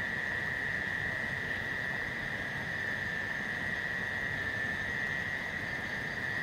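Steady night-time chorus of forest creatures: one unbroken high-pitched trill, over a low even hiss.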